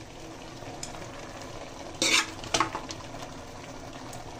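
A metal ladle stirring meat into a pot of simmering soup in an aluminium pot, with a few sharp scraping knocks against the pot about two seconds in, over the steady sizzle of the cooking pot.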